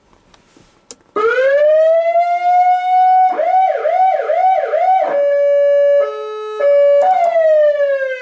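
Old-school electronic siren on a fire department brush truck, very loud, switched on about a second in: a rising wail that levels off, then a few seconds of fast yelping sweeps, then a held steady tone that briefly drops to a lower one, then a long falling wail as the controller knob is turned through its settings.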